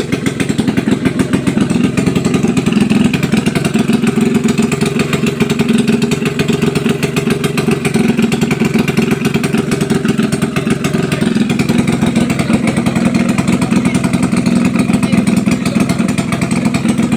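Freshly overhauled motorcycle engine running steadily on its test run, holding an even speed with a rapid, continuous exhaust beat and no big revs.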